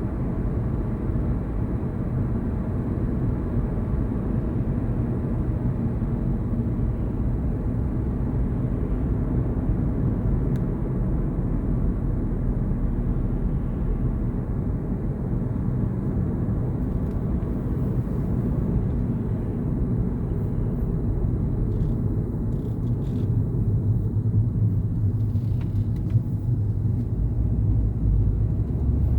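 A car driving along the road: a steady low rumble of tyres and engine.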